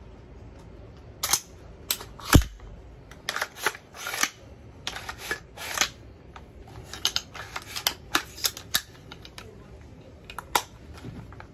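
Irregular sharp metallic clicks and clacks of a Windham Weaponry AR-15-style carbine being handled and worked, with one louder knock about two seconds in.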